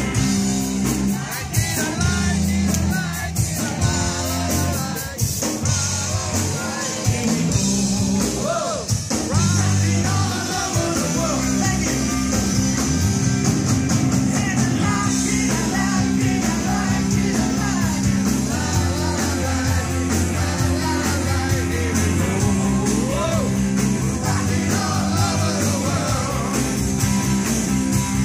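Live rock band playing a rock-and-roll song: electric guitars and a drum kit with a lead singer.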